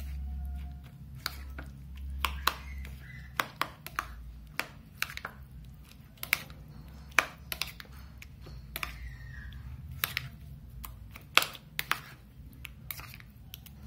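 Metal fork stirring curd and chopped vegetables in a ceramic bowl, the fork clinking against the bowl in irregular sharp clicks about once or twice a second.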